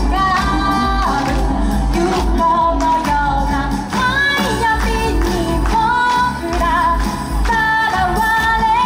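A woman singing a pop song with a wavering, held melody over a backing track with a steady low beat.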